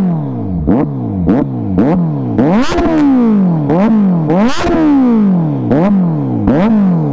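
Kawasaki Z900's inline-four revved hard from idle in quick throttle blips, about one or two a second, each rising sharply and falling back. It breathes through the de-catted stock header, link pipe and Arrow muffler, which makes it very loud.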